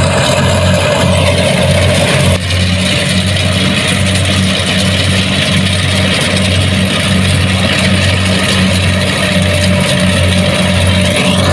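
Kubota DC70 Plus rice combine harvester's diesel engine running steadily, with a loud low hum and machinery noise over it; the sound dips briefly just over two seconds in.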